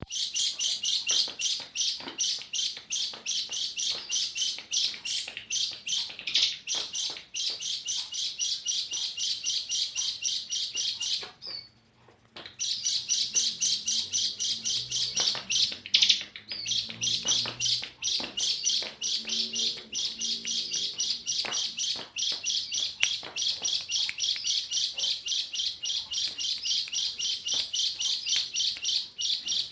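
A tame pet bird chirping in a fast, unbroken series of high notes, about five a second, with one brief pause partway through.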